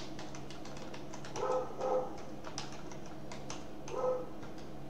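Typing on a computer keyboard: irregular key clicks over a steady low hum. Two short muffled sounds come through louder, about one and a half seconds in and again near four seconds.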